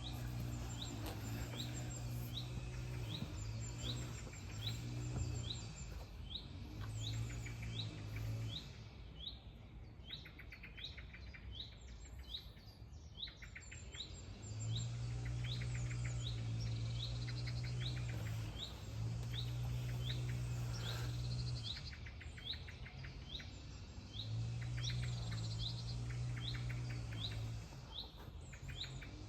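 Songbirds chirping, one bird repeating a short high chirp about twice a second, with quick trills from others now and then. A low steady hum comes and goes underneath.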